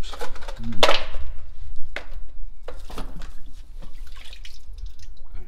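Water dripping and splashing into a drain from a hauled-up fishing magnet and its rope: a string of sharp drips and splashes, the biggest about a second in, over a steady low rumble.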